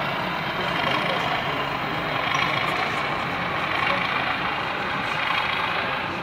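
Steady crowd chatter in an exhibition hall, with the engine sound of a sound-fitted OO gauge model diesel locomotive running through it.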